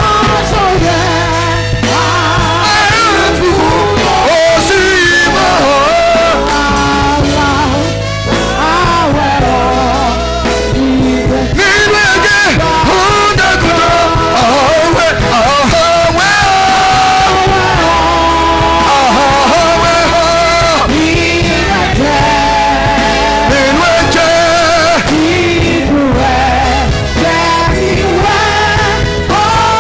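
Worship song sung in Yoruba by singers over a band, with a steady bass and drum beat underneath.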